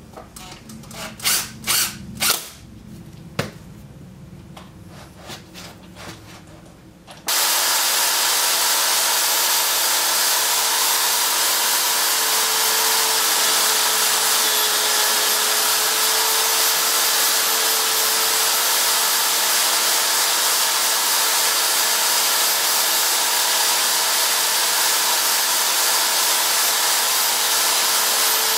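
A cordless impact driver runs in a few short bursts, driving screws into wood. About seven seconds in, a corded electric drill mounted horizontally as a mini lathe starts and runs steadily at constant speed.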